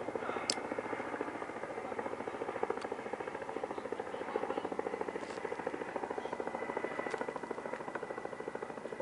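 Kamov Ka-32 helicopter flying past, its coaxial rotors beating in a rapid, steady thud over the turbine whine. A high whine grows plainer in the second half, and the rotor beat fades a little near the end.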